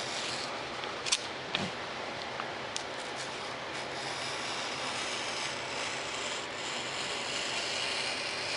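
Knife blade scoring foam board through paper plans, cutting about halfway through: a continuous scratchy rasp with a few sharp ticks in the first three seconds.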